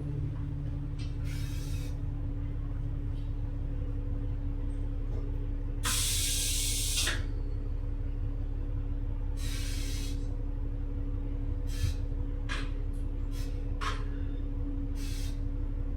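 Inside a double-decker bus: a steady engine hum with a low rumble, broken by a loud hiss of air about six seconds in lasting about a second, another around nine and a half seconds, and several short hisses and clicks near the end.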